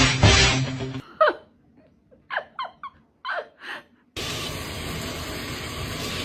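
Music stops about a second in, then a cat gives about six short, clipped calls that drop in pitch, like quick chirps or brief meows. A steady hiss starts near the end.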